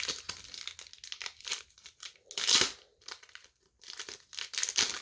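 Hockey card pack wrapper being torn open and crinkled by hand, in irregular crackly rustles with a louder tear about halfway through and more near the end; the wrapper is ripping apart in shreds rather than opening cleanly.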